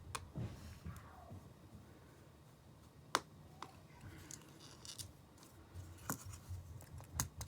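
A few sharp clicks and light scraping from small hand tools working on the metal and plastic parts of an iPhone 5 being taken apart, over a steady low hum.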